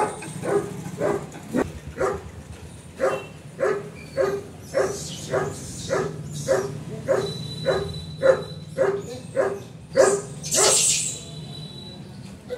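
A dog barking over and over in a steady run, about two barks a second.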